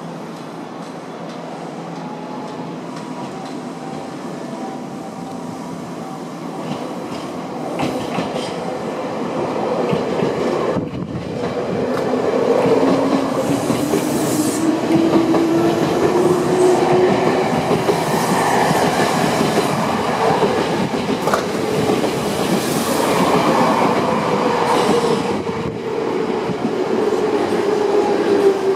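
Semboku Rapid Railway 3000 series electric train pulling out of a station. Its motors whine and rise slowly in pitch as it picks up speed, and the wheels clack over rail joints, growing louder from about ten seconds in as the cars pass close by.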